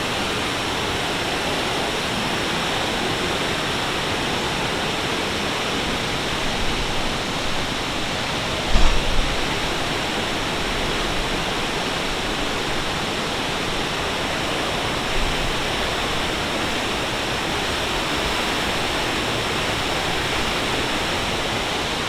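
Athabasca Falls, a large glacier-fed waterfall on the Athabasca River, pouring with a steady, heavy rush of water. A brief low bump about nine seconds in.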